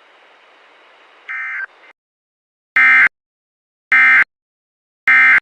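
Emergency Alert System end-of-message data bursts: three short, harsh buzzing chirps of digital SAME code about a second apart, signalling that the alert message is over. They follow a stretch of faint radio hiss and a quieter short burst about a second and a half in.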